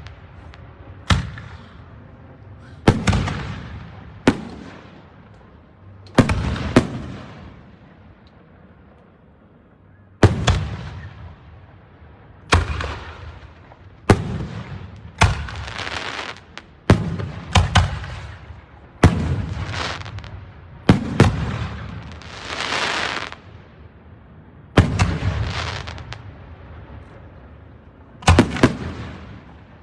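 Aerial fireworks shells bursting in a steady barrage of about twenty loud bangs, one to two seconds apart and sometimes in quick pairs, each fading off in an echoing tail.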